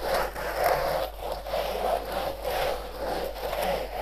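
Toothed rasp float scraping back and forth over Rockwool stone-wool facade insulation slabs, in steady strokes about twice a second, sanding the uneven slab joints flat.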